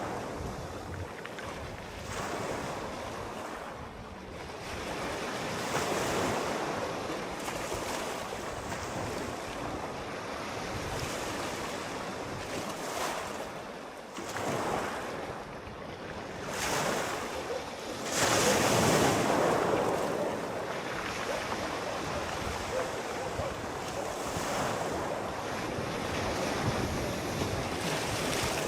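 Sea waves washing in and breaking, each wave a swell of rushing noise that rises and fades every few seconds; a larger wave breaks about 18 seconds in.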